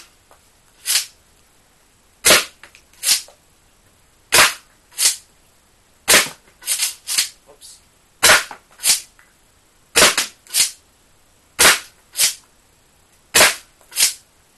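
Homemade Nerf snap bow blaster firing darts from a gravity-fed hopper clip, one after another: a sharp snap roughly every two seconds, each followed by a second, softer click about half a second later.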